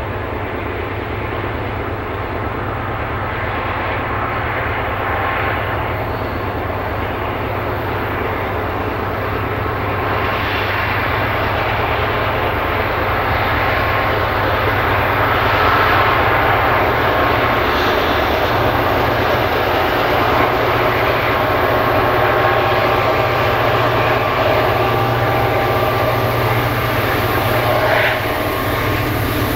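Southern Pacific diesel freight locomotives working upgrade, their engines' steady drone growing gradually louder as the train approaches.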